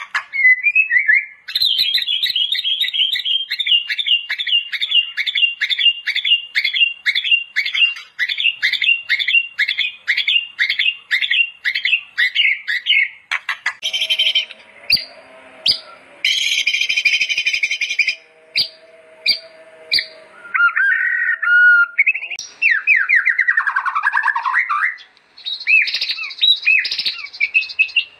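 White-rumped shama singing: first a long run of rapid, evenly repeated falling notes, then a varied medley of whistles, sharp clicks and quick note series.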